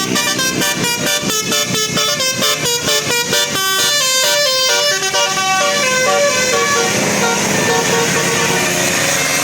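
Bus 'telolet' multi-tone musical horn playing a quick tune of short stepped notes, several a second, giving way about halfway through to a steadier, noisier sound with a few held tones.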